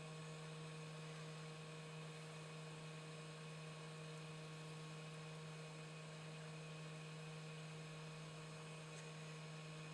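Steady electrical hum, a constant low drone with a few fainter fixed tones above it and no change or distinct events.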